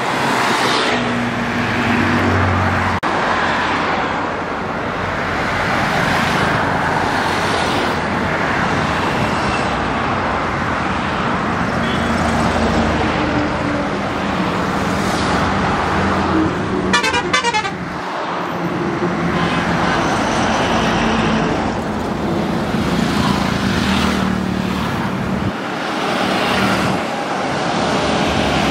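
Road traffic with tractor and car engines running and tyres on the road, and vehicle horns honking. About seventeen seconds in, a brief rapid high-pitched pulsing sound cuts through.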